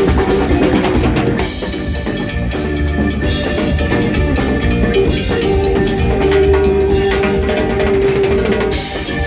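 Latin rock band playing live, with busy drums and percussion, rimshot-like strikes included. A long held note sounds from a little past halfway until near the end.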